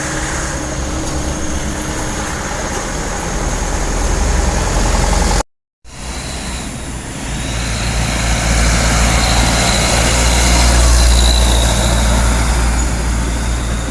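Heavy truck engine running under load on a steep uphill climb, a low drone that grows louder and peaks about three-quarters of the way through before easing off. The sound cuts out completely for about half a second near the middle.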